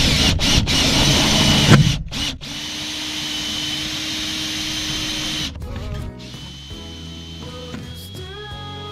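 A drill driving a long self-drilling roofing screw through a foam-cored metal roof panel into a steel beam: a loud, noisy burst for about the first two seconds, then a steady motor whine for about three seconds. Background music comes in about six seconds in.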